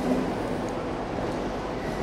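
Hull Trains Class 802 train drawing slowly into a station platform: a steady rumble with a faint hum, and a thin high squeal coming in near the end.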